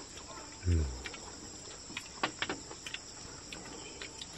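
Steady high-pitched chirring of insects in the background, with scattered light clicks of chopsticks against porcelain bowls and plates. A short falling grunt from a man comes just before a second in.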